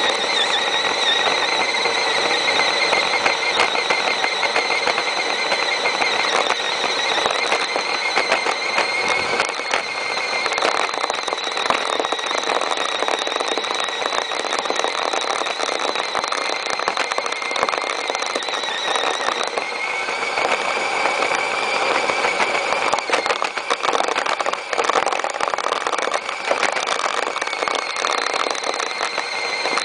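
Axial AX10 radio-controlled crawler's electric motor and geartrain whining steadily as it pushes snow with its plow blade, with a dense crackle underneath. The whine steps up a little in pitch about two-thirds of the way through.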